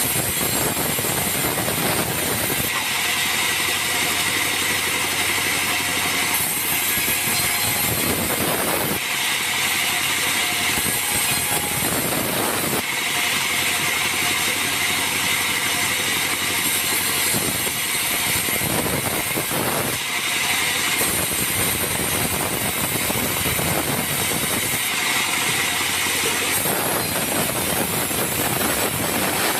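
Bandsaw mill running steadily while its blade rips acacia planks lengthwise, the cutting sound changing every few seconds as each pass starts and ends.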